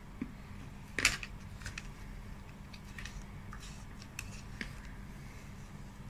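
Metal spoon scraping and clicking against the inside of a plastic cup of ice cream. The loudest scrape comes about a second in, with lighter taps and scrapes after it, over a faint steady hum.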